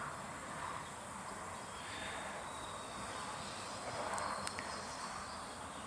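Quiet outdoor background ambience, a soft steady hiss with a couple of small sharp ticks about four and a half seconds in.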